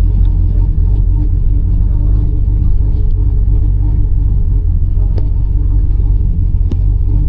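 Chevrolet Camaro ZL1 driving at a steady pace: a continuous low rumble of supercharged V8 engine and road noise.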